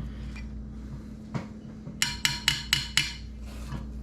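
Five quick, ringing metal-on-metal taps in about a second, after a single lighter click, from tools being worked on a cylinder head's valve spring compressor.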